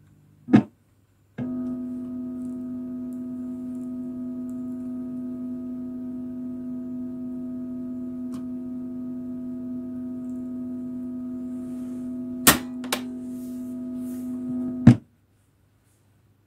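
Reel-to-reel tape recorder playing back a steady electronic tone with several overtones. The tone starts abruptly just after a sharp click, and near the end a few loud clicks sound before it cuts off suddenly with a final click.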